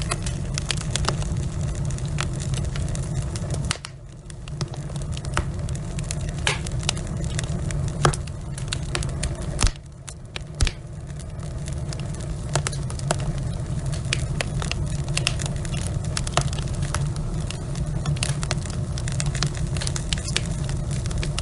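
Wood fire burning in a fireplace, crackling and popping continuously over a steady low rumble, with a few louder pops about eight to eleven seconds in. The rumble briefly drops away twice.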